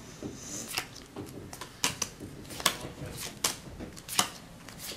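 Playing cards dealt face up one by one onto a pile, each landing with a sharp snap, about five in an even rhythm with lighter card-handling ticks between.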